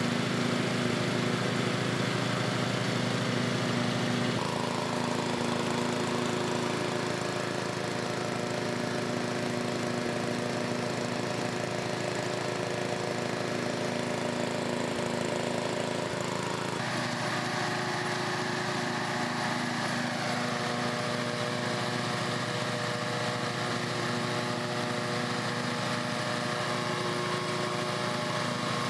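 Riding lawn mower engine running steadily with the blades engaged, while water from a PVC-pipe deck washer sprays up under the deck to wash out the clippings. The engine's tone shifts slightly about four seconds in and again a little past halfway.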